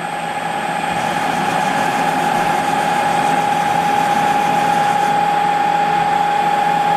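CNC-converted Harrison M300 lathe running a screw-cutting pass: a steady machine noise with one constant high whine, growing a little louder over the first few seconds, then holding steady.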